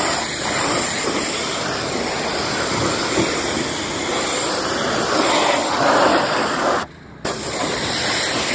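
Pressure-washer jet spraying onto a car's painted body panels: a steady loud hiss of water, cutting out abruptly for a moment about seven seconds in.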